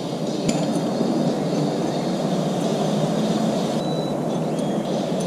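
A steady low hum with a few light metallic clinks, one sharper clink about half a second in, as small nuts are handled and threaded onto the studs of a Laycock overdrive unit.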